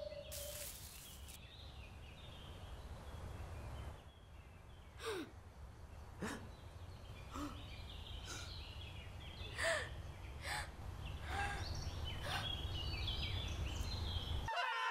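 Woodland ambience: a steady low rumble of wind with birds chirping, and a brief rush of noise about half a second in. From the middle on, a string of short, sharp sounds about once a second, some dropping quickly in pitch, like small animal squeaks and gasps.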